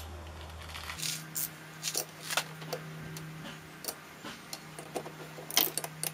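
Ratchet wrench with a 9/16-inch socket on a lawn mower blade's centre nut: scattered metal clicks and clinks as the socket is seated and the ratchet worked, the sharpest about five and a half seconds in.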